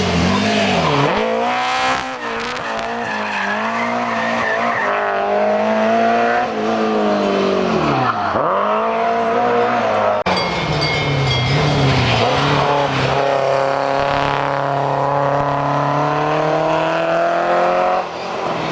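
Rally car engine at high revs on a stage, its pitch dropping sharply twice as the driver lifts and shifts, then climbing again. About halfway through the sound breaks off and a second run follows, the engine note holding high and slowly rising.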